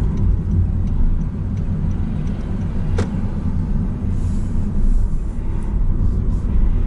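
Steady low rumble of a car's engine and tyres heard from inside the cabin while driving in town traffic, with a single sharp click about three seconds in.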